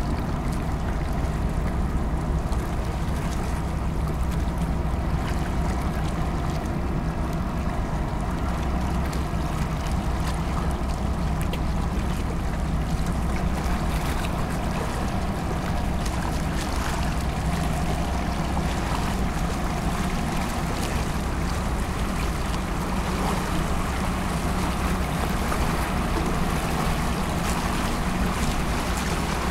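Low, steady drone of ship engines from a large container ship under way, with water washing along its hull.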